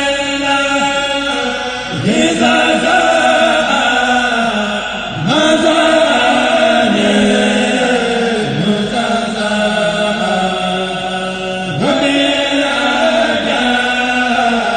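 A kourel of men chanting a Mouride khassida together, several voices in long held phrases. Each new phrase opens with a swooping rise, about two, five and twelve seconds in.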